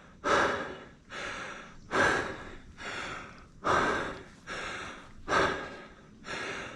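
A man breathing hard and rhythmically, winded from the physical effort of rope-climbing a tall tree. Four louder breaths come about 1.7 s apart, with a softer breath between each.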